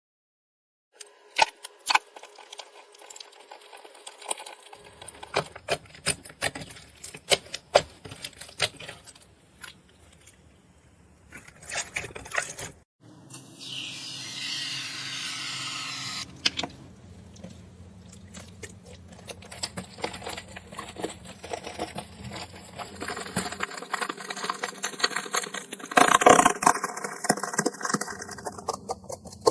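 Slime being squeezed and poked by hand, making irregular crackling, popping clicks. About halfway through, a steadier rustling hiss of slime being pressed lasts a few seconds. The clicking is densest near the end.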